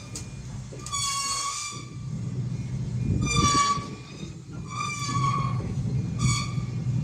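A pitched horn sounding in four short blasts, the third the loudest, over a steady low engine hum.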